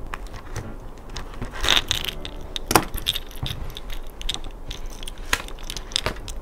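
Pages of a small M5 five-ring system planner being handled and turned: paper rustling with irregular light clicks and taps, the loudest about a second and a half and nearly three seconds in.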